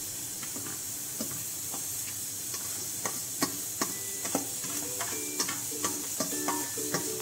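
Steel ladle scraping and knocking against a steel colander as drained parboiled rice is pushed out into a steel pot. The clicks come faster from about three seconds in, some ringing briefly, over a faint steady hiss.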